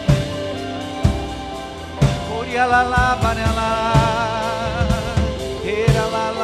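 Live worship band music: a drum kit keeps a steady beat under sustained chords, and a melody line with wide vibrato comes in about two and a half seconds in.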